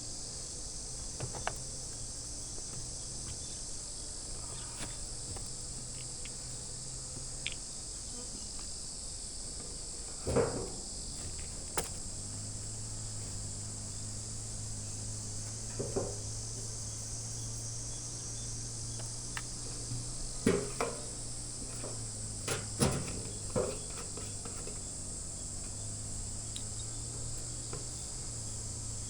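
Steady high-pitched chirring of insects, with a few scattered knocks and thumps of wood being handled, the loudest about a third of the way in and in a cluster two-thirds of the way through.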